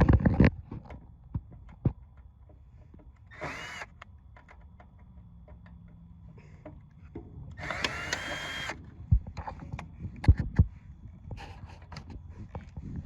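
Cordless drill spinning in two short bursts, its whine rising as it spins up and then holding, the second burst about a second long. Scattered knocks and clatter fall in between.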